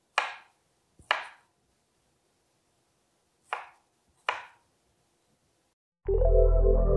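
Kitchen knife slicing strawberries on a wooden cutting board: four short, sharp knife strikes against the board, unevenly spaced over about four seconds. About six seconds in, background music starts.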